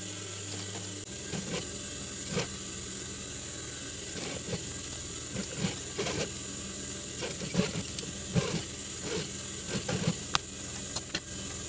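Industrial sewing machine running, a steady motor hum with many irregular clicks and short bursts of stitching as a trucker cap's sweatband is sewn again.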